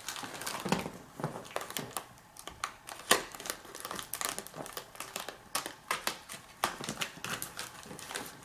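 Packing tape and wrapping being peeled and crinkled by hand to unwrap a taped bundle of lock picks: a run of irregular crackles and sharp ticks.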